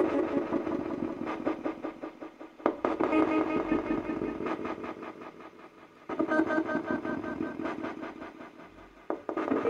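Homemade spirit communication device playing through its echo speaker box: a rapidly chopped, echoing jumble of noise and pitched tones. It surges in suddenly and fades away about every three seconds.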